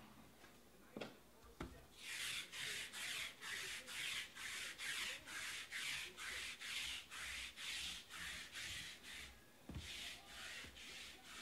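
Rhythmic scraping strokes, about three a second, in a long run of about seven seconds. A single knock follows, then the strokes start again for a shorter run.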